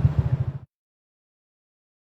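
Honda ADV150's single-cylinder engine idling through a Yoshimura R-77S full exhaust, a steady low pulsing that fades away about half a second in and then cuts off to dead silence.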